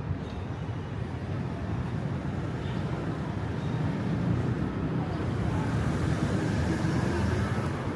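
Street traffic noise with engine rumble, swelling from about halfway through as a vehicle passes close and easing off near the end.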